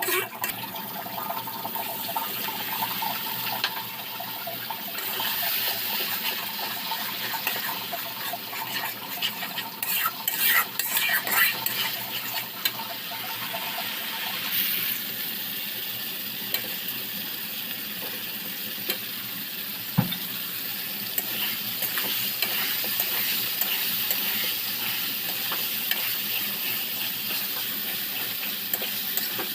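Food frying and sizzling in hot oil in a pan while a spatula stirs it, scraping and clinking against the pan. The clinks come thickest about ten to twelve seconds in, with one sharp knock later on.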